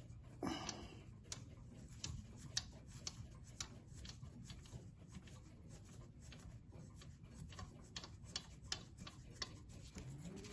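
Small, irregularly spaced metallic clicks as screws are worked loose from beneath a brass clock case, with a brief scrape about half a second in.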